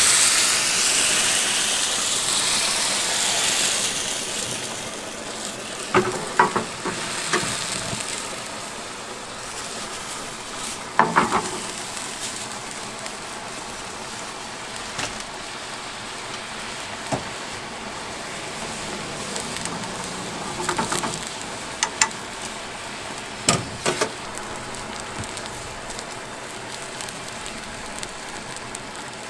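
Liquid poured into a hot frying pan of bacon and garlic hisses loudly with steam, dying down over the first few seconds. A cream sauce with spaghetti then bubbles and sizzles steadily over the gas flame, with a few sharp clinks of utensils against the pan.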